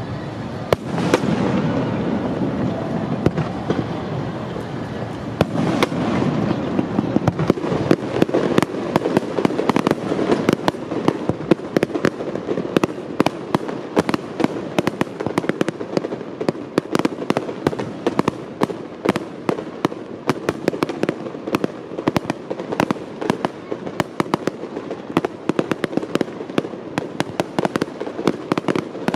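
Aerial fireworks bursting: two loud bursts with a rolling echo in the first six seconds, then a dense run of rapid crackling and popping from shells going off in quick succession.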